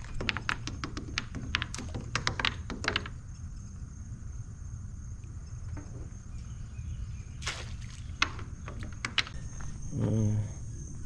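Scattered clicks and light knocks of a wire two-ring crab net and its cord being handled and lowered over a wooden pier railing, bunched in the first three seconds and again near the end, over a faint steady high insect buzz.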